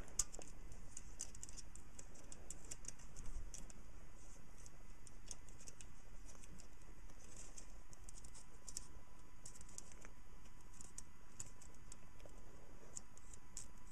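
Light, scattered clicks and ticks of thin wire cords being threaded by hand through holes in a plastic electronics kit case and plugged in.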